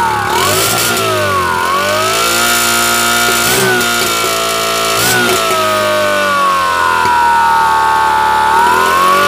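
A homemade transistor sound circuit driving a horn loudspeaker on a motorcycle, giving a buzzing, F1-like engine whine whose pitch rises and falls as the throttle is opened and closed. There are two quick blips in the middle and a long slow drop near the end.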